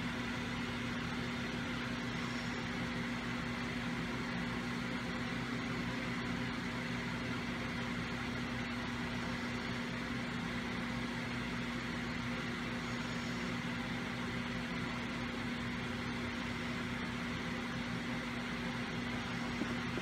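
Steady room background hum with a faint higher whine, even throughout, such as a fan, air conditioner or electrical hum gives; the nail-polish brush strokes themselves are not heard.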